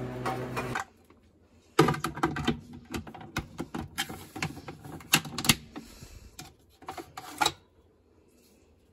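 Hard plastic parts of a food processor being handled and fitted together: a run of irregular clicks and knocks, plastic on plastic, from about two seconds in until near the end. A steady machine hum runs under the first second, before the clicking begins.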